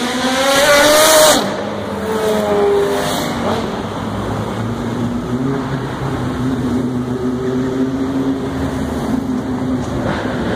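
Race car engine accelerating hard, its pitch rising for about a second before it drops away. A falling engine note follows, then engines running at a steadier, lower note.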